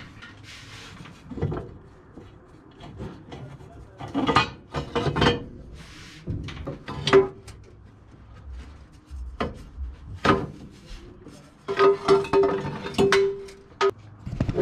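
A steel exhaust header being worked up into place from below, knocking and scraping against the engine bay and motor mount. The knocks come irregularly, loudest around four to five seconds in and again in a cluster near the end.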